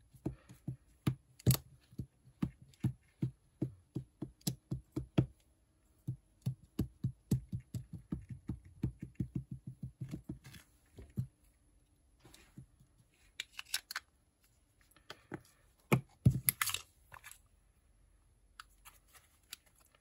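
A small ink pad dabbed again and again onto a clear stamp mounted on an acrylic block: a run of soft taps, a few a second, thinning out after about ten seconds. A few louder knocks and handling noises follow near the end.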